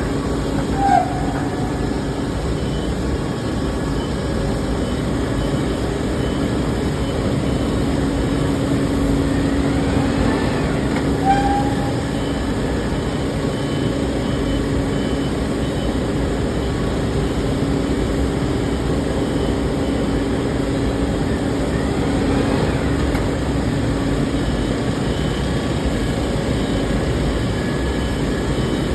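Steady mechanical din of an aluminium melting furnace and its dross-removal machinery, with a constant hum, and two brief squeaks, one near the start and one about eleven seconds in.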